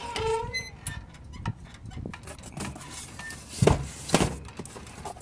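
A key turning in the lock of a metal cluster mailbox and its metal compartment door opening. A short squeak comes right at the start, then clicks and rattles, with two loud knocks about three and a half and four seconds in.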